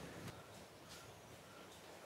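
Near silence, with a few faint clicks of hand-tool work on the plastic air filter box cover of a Honda Dio 50cc scooter engine.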